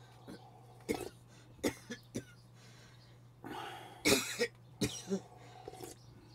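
A person coughing and clearing the throat in several short bursts, the loudest about four seconds in.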